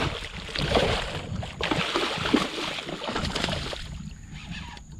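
A hooked redfish thrashing and splashing at the surface beside a kayak, a run of irregular splashes that eases off near the end.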